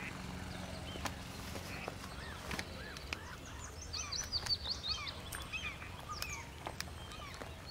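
Small birds chirping and singing in the background: many short, quick chirps, busiest around the middle.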